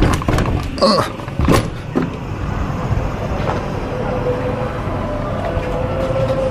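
Metal handle and latch of an old wooden balcony door clicking and knocking as the door is opened, followed by the steady hum of distant city traffic once outside.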